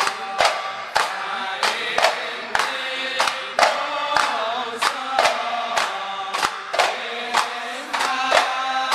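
Ishari sholawat: men's voices chanting a slow, drawn-out Arabic devotional poem in unison, over terbang frame drums struck in a steady beat of about two strikes a second.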